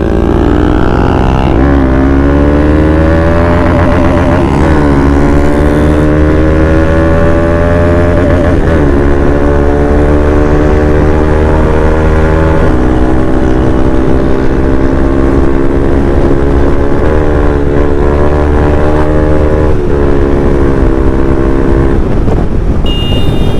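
Motorcycle engine accelerating hard through the gears: its note climbs and drops back at each of several upshifts in the first dozen seconds, then holds at fairly steady high revs.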